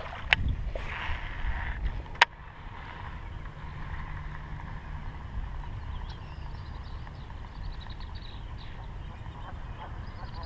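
Splash of a released bass dropping back into the water at the start, with two sharp clicks in the first couple of seconds. Then a steady low rumble of wind on the microphone, with faint high ticking near the end.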